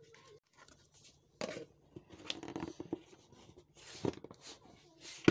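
A spoon stirring and scraping sticky wet dough in a plastic bowl, then plastic knocks as a plastic lid is put over the bowl, with a sharp knock at the very end.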